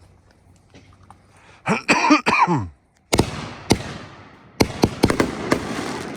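A brief cough-like voice sound about two seconds in, then a World Class consumer firework cake starts firing about three seconds in: a quick run of sharp launch bangs with crackling between them.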